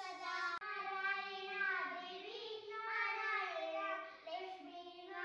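Two young boys singing a prayer together, holding long melodic notes, with a brief break about half a second in.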